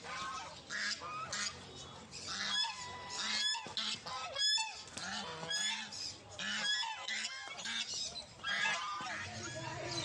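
Domestic ducks fighting, giving many harsh, overlapping quacking and honking calls in quick succession.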